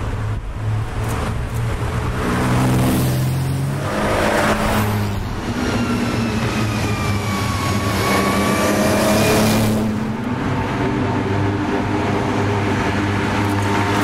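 Classic sports and racing cars driving past one after another, their engines accelerating with the pitch stepping up through the gears and falling away as each car goes by. The loudest pass-bys are about three to five seconds in and nine to ten seconds in, and another car is coming up loud at the end.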